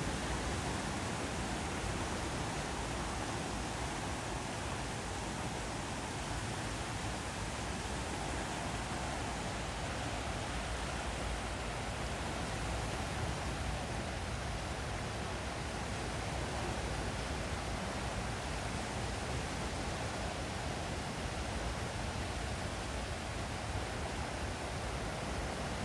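Steady, even rush of sea surf along the shore, with no single wave standing out and no other distinct sound.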